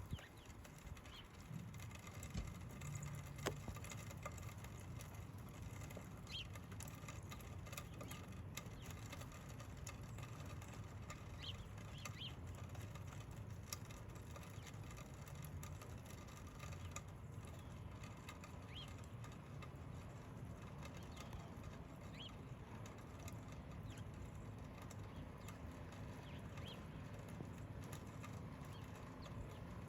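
Faint, scattered short bird chirps, a few at a time, over a low steady rumble of wind on the microphone.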